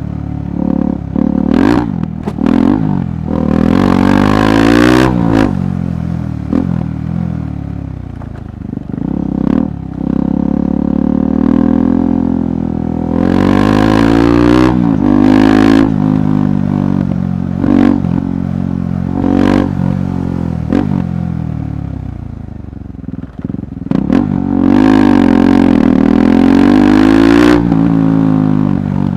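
KTM 390 Adventure's single-cylinder engine on a rough trail, revving up and dropping back again and again as the throttle opens and closes. Scattered knocks and clatter sound from the bike over the rough ground.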